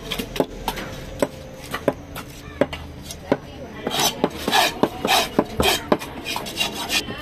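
Large fish-cutting knife knocking on a wooden chopping block in sharp separate strikes, then, from about four seconds in, scraping across the wood in a quicker run of rasping strokes.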